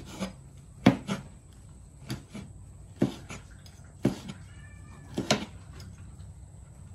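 A meat cleaver chopping through fried beef liver onto a wooden cutting board, about eight uneven knocks. A cat meows a little past the middle.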